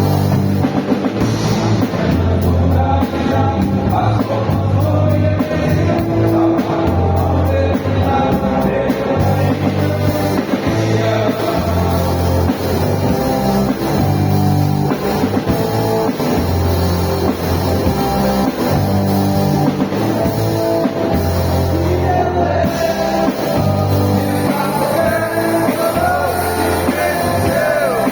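Men's choir singing with an amplified band: bass guitar, drum kit and electric guitar.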